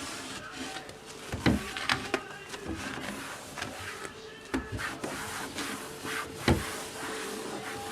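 Household objects being handled: a few sharp knocks and clicks, as of things set down or a drawer moved, over a faint steady hum.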